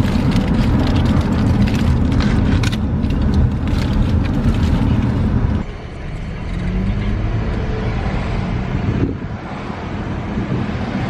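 Car on the move: a steady low road and engine rumble that drops noticeably quieter about halfway through.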